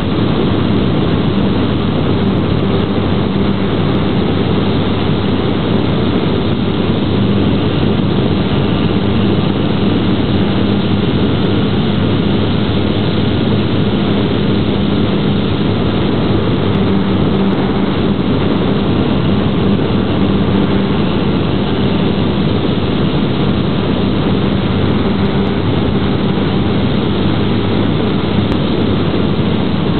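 Brushless electric motor and propeller of a GWS Slow Stick RC plane running at a steady speed in flight, a loud, even drone with a steady low hum, heard close up from a camera mounted on the plane.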